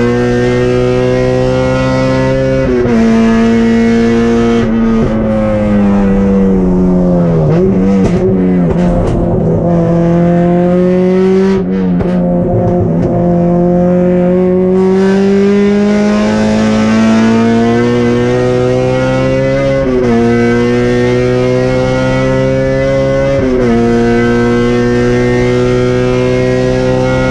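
Honda K24 four-cylinder engine of a Civic race car, heard from inside the cabin, running hard on track. Revs climb and drop sharply at upshifts about three seconds in and twice in the last eight seconds. In the middle the revs fall away with a few quick throttle blips, then climb slowly for about ten seconds.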